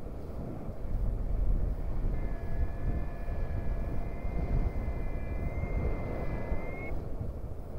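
Wind buffeting the microphone of a paraglider in flight, a steady low rumble. From about two seconds in, a paragliding variometer sounds one steady electronic tone for nearly five seconds, bending up slightly just before it cuts off.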